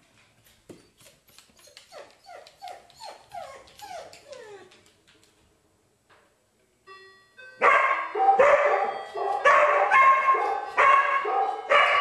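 A dog barking hard and repeatedly, about two barks a second. The barking starts right after a short doorbell-like ring in the middle. Earlier there is a faint run of quick yelps that fall in pitch, about three a second.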